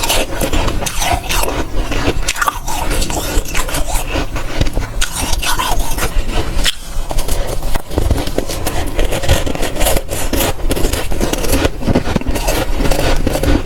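Dry, powdery freezer frost crunching and scraping close to the microphone: a dense run of crackly crunches, with a brief pause about seven seconds in.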